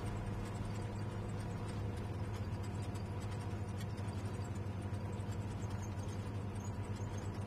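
Steady low engine hum heard inside a bus cabin.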